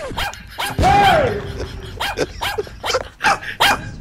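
A dog barks, one drawn-out call that rises and falls in pitch about a second in, among sharp short clicks and knocks.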